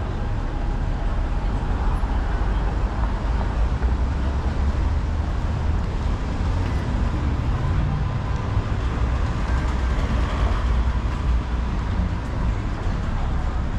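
Street ambience of steady traffic: a continuous low rumble of cars on the road.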